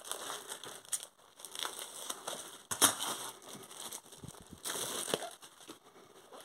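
Thin plastic shrink-wrap crinkling and crackling in a few short bursts as it is peeled off a paperback book, the loudest about halfway through.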